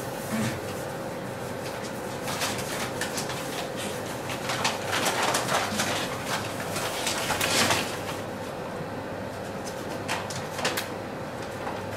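Paper bag crinkling and rustling in quick crackles as it is handled, thickest between about two and eight seconds in and again briefly near the end, over a steady hum.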